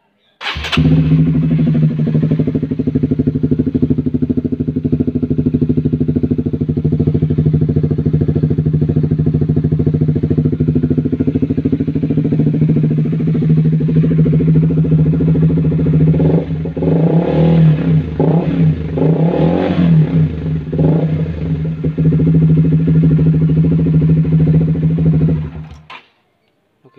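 Honda CBR150R's single-cylinder four-stroke engine breathing through a PDK aftermarket exhaust: it starts about half a second in and idles steadily, is revved in several short blips in the second half, then is switched off near the end.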